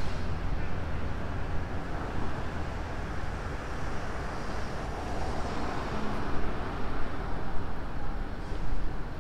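Street traffic ambience: steady road noise with a low rumble, swelling as a vehicle passes about five seconds in.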